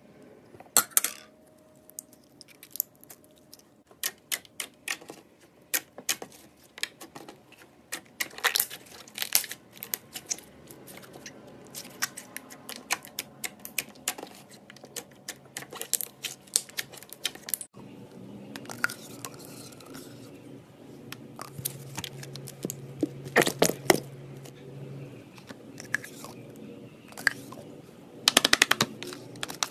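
Slime being poked, pressed and stirred, giving quick runs of sticky clicks, pops and crackles. About halfway through, a faint steady background hum joins it, with the loudest bursts of crackling later on.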